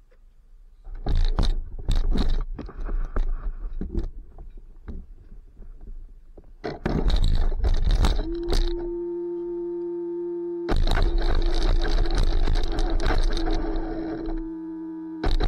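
Knocks and rustling as the Redcat Machete 6S RC truck is handled, then, once it is switched on about eight seconds in, a steady electronic tone from its brushless motor and speed controller, heard under bursts of rustling and wind noise on the on-board camera mic.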